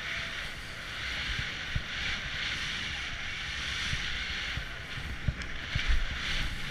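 Wind rushing over the microphone while gliding fast downhill over soft, tracked snow, with a steady hiss of the sliding and scattered low bumps from the uneven snow.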